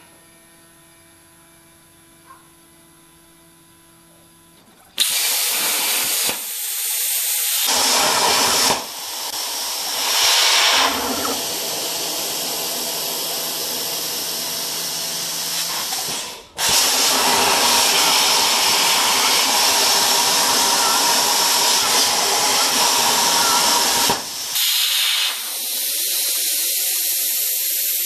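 Hypertherm Powermax 45 XP plasma torch on a CNC table cutting steel plate: a loud, harsh hiss of air and arc starts about five seconds in, after a faint hum. It cuts out for a moment about two-thirds of the way through, starts again, and drops to a thinner, higher hiss near the end.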